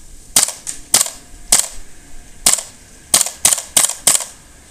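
WE-Tech G39C gas blowback airsoft rifle on propane firing single semi-auto shots, about nine sharp cracks at an uneven pace of one every third of a second to one a second, each with the bolt's blowback clack. In near-freezing cold it keeps cycling steadily, showing no sign of cooling down and freezing.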